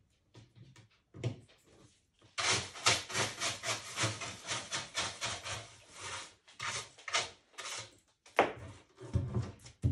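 A wide paintbrush scrubbing paint onto the edge of a painted wooden panel, with rapid scratchy back-and-forth strokes. The strokes are sparse and soft at first, run about three or four a second from about two seconds in, and end with a few separate louder strokes.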